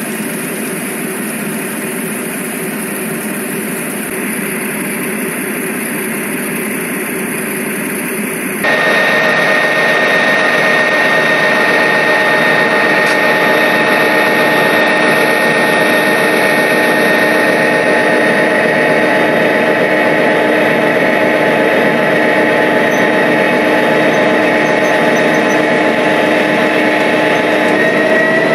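Model railroad coal train running along the layout track: a steady rolling, mechanical running sound. About nine seconds in it jumps louder, with a steady high whine as the diesel locomotives come past.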